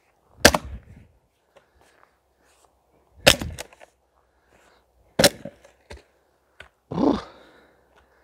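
Steel splitting maul (Ochsenkopf Big Ox) driven into a thick linden round with four blows about two seconds apart. The first three are sharp cracks. The last is duller and longer as the round splits apart and a half falls over.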